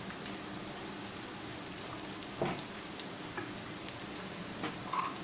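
Diced carrot and green capsicum sizzling steadily in hot oil in a wok. From about halfway through, a few short clicks come as a silicone spatula stirs them against the pan.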